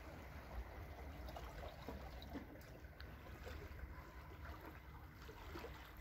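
Faint sea ambience: calm water lapping and trickling against a rocky shore.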